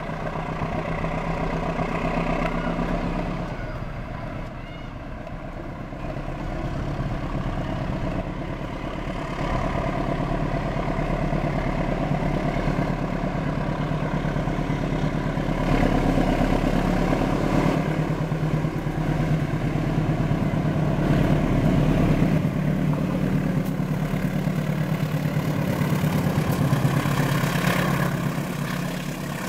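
Diesel-electric locomotive engine running with a steady low drone. It grows louder about halfway through and eases off near the end.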